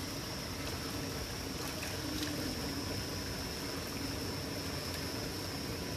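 Water trickling steadily under a constant high-pitched whine.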